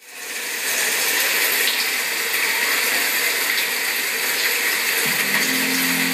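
A steady rushing water sound, like rain, fades in over the first second and holds. About five seconds in, low sustained music notes enter underneath.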